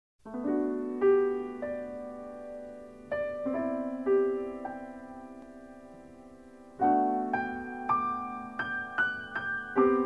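Background piano music: a melody of single struck notes over held low chords, with a new chord about every three seconds.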